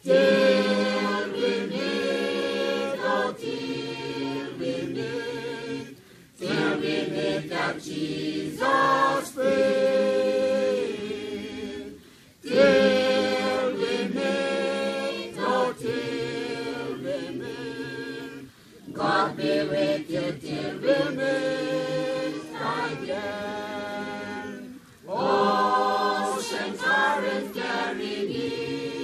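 A choir singing unaccompanied, several voices together, in phrases about six seconds long with brief pauses between them.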